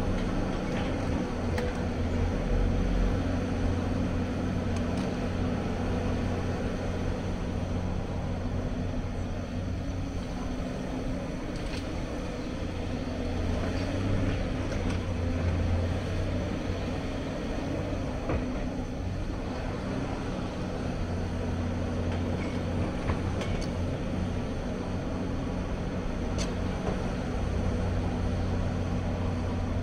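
Hyundai crawler excavator's diesel engine running steadily under load as it digs and swings to load a dump truck, with a few faint knocks of rubble.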